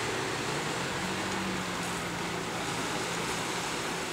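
Steady open-air background noise with the low hum of a road vehicle's engine passing, fading out after about three seconds.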